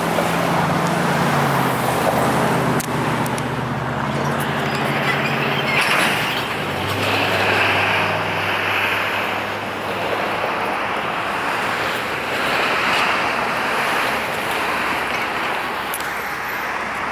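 Road traffic passing on a highway: tyre and engine noise that swells and fades every few seconds, over a low steady engine hum that drops in pitch about six seconds in.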